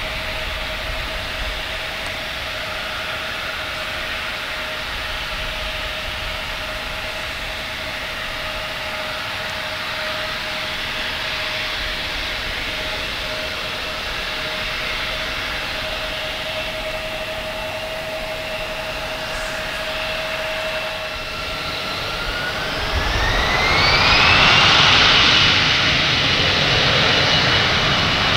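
Embraer E175 jet engines running at idle with a steady whine while the airliner taxis and lines up. About 22 seconds in they spool up to takeoff thrust: the whine rises in pitch and the sound gets louder, then holds at full power for the takeoff roll.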